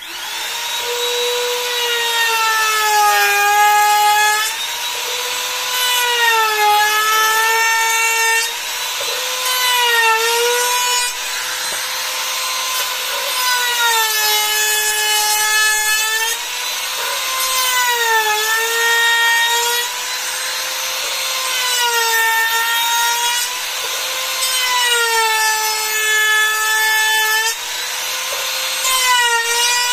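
Handheld trim router running at high speed and cutting into a wooden strip; its high whine drops in pitch each time the bit bites into the wood and recovers as the load eases, repeating every couple of seconds.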